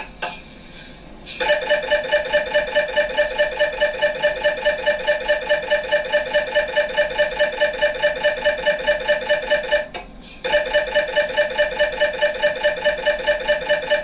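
MRI scanner's gradient coils running a scan sequence: a loud, rapid rhythmic beeping of about four pulses a second, starting about a second in after a couple of clicks, with a brief pause about ten seconds in before it resumes.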